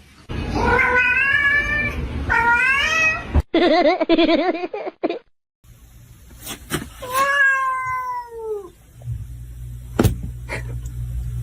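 Cats meowing, cut together from short clips: two or three drawn-out meows rising in pitch in the first few seconds, then after a short break a long meow that falls in pitch, with a few sharp clicks around it.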